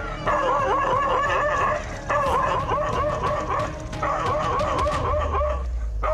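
Dog barking nonstop in fast runs of high-pitched barks, several a second, with short breaks every couple of seconds: defensive barking at a leopard.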